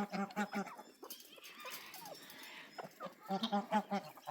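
Domestic waterfowl calling in quick runs of short, repeated calls, about five a second, near the start and again near the end. A soft hiss lies in between.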